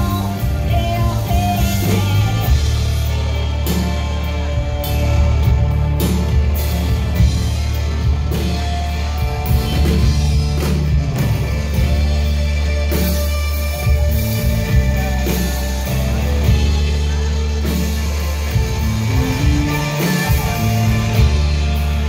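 Live rock band music: electric guitar lead over drums and bass, with steady bass notes and regular drum hits.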